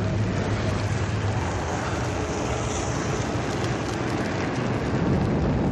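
Fire sound effect of a man engulfed in flames: a loud, steady rush of burning with a deep rumble underneath.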